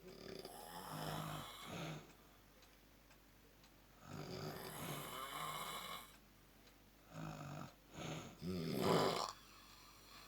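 A person snoring in deep, rasping breaths, about three snores with quiet pauses between them, the loudest near the end.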